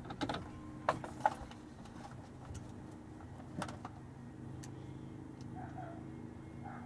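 Sharp clicks and knocks of hands handling parts at a car-audio amplifier rack, several in the first second and a half and one more about three and a half seconds in, over a steady low hum.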